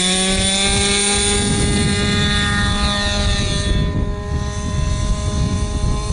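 Avistar 40 radio-controlled trainer's two-stroke glow engine running at high revs as the plane takes off, its pitch rising briefly at the start and then holding steady. About four seconds in it turns fainter as the plane climbs away, with wind rumbling on the microphone.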